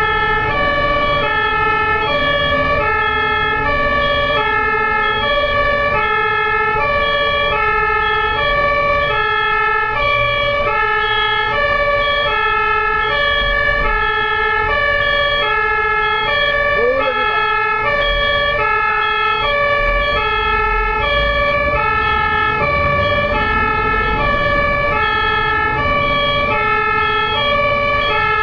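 Ambulance's two-tone siren alternating steadily between a high and a low note, each held about half a second, over low traffic rumble.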